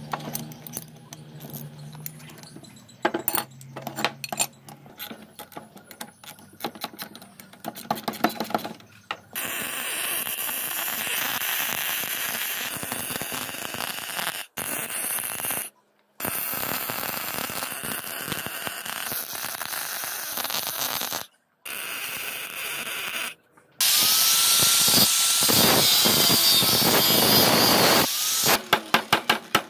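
Metal clinks of bolts and a ring spanner on a steel plate, then a stick welder's arc crackling and hissing in several runs, then an angle grinder grinding steel with a sliding whine. A quick run of sharp taps follows near the end.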